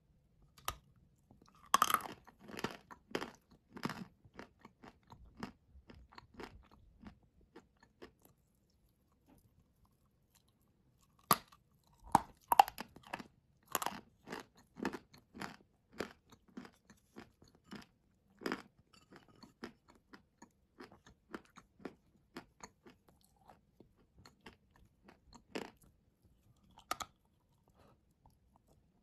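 Dry blue clay being bitten and chewed: sharp crunching bites followed by runs of chewing. The loudest bites come near the start, about eleven to thirteen seconds in, and again later, with a short lull of a few seconds before the second round.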